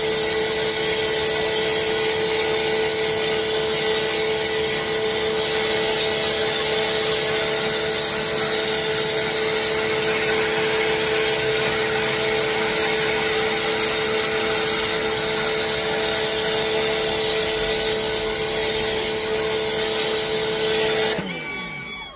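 Ozito 1800W electric pressure washer running steadily, its motor and pump humming under the hiss of the high-pressure water jet. About a second before the end it shuts off, its pitch falling as it winds down.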